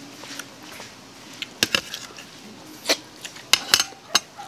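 Eating sounds: about six sharp clicks and smacks, from mouths chewing and a metal spoon set down on a plate, coming in the second half.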